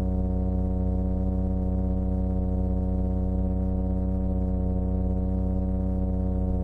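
Type I male plainfin midshipman (a toadfish) humming: a steady, unbroken low drone. This is the advertisement call a nesting male makes to attract a female.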